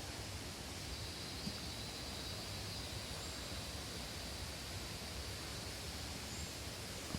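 Steady outdoor background noise: an even hiss with a constant high-pitched band and a low rumble underneath, unchanging throughout.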